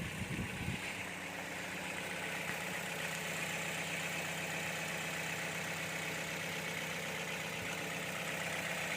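2014 Toyota Vios four-cylinder petrol engine idling steadily just after starting, with its clogged fuel filter freshly replaced so it no longer starts hard.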